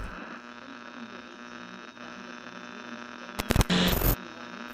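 A low electronic hum with several held tones, broken about three and a half seconds in by a few short bursts of crackling static.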